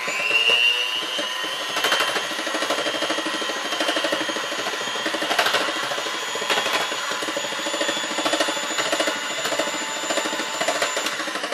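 Electric hand mixer running steadily with its beaters whisking thin chickpea-flour batter in a glass bowl. The motor whine rises as it starts and cuts off near the end.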